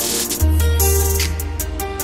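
Background music with a steady beat and held notes; a deep bass note comes in about half a second in.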